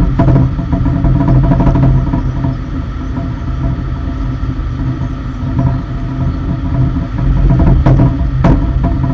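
Engine of a lower deck cargo loader running steadily, a low hum with faint higher whining tones over it. A few sharp knocks or clicks sound near the start, and two more about eight seconds in.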